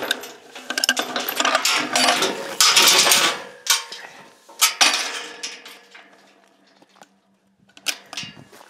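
Metal gate latch and steel gate clanking and rattling as the gate is worked open, with a run of sharp metallic knocks and ringing over the first five seconds, then a few softer clicks near the end.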